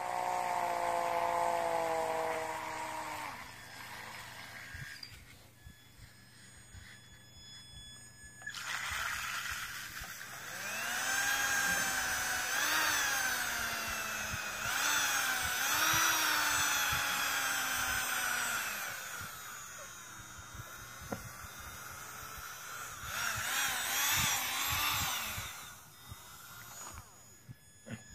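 Titan 12T brushed RC motor whining as it spins on its ESC, its pitch rising and falling as the throttle is worked. There is a falling whine at the start, then a long spell of up-and-down revving, and another short spell near the end. This is a brushed motor being broken in with the distilled-water method.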